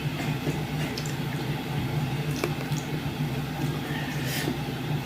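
Soft wet squishing and a few sharp smacking clicks of someone eating buckwheat dhido with chicken curry, the loudest click near the end, over a steady low hum.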